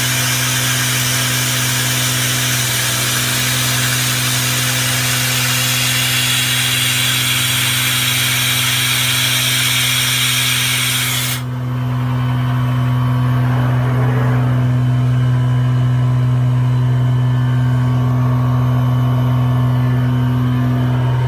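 CNC woodworking router running, its spindle cutting wood with a dense hissing noise over a steady low machine hum. About eleven seconds in, the cutting noise stops suddenly and the steady hum carries on alone with fainter mechanical sounds.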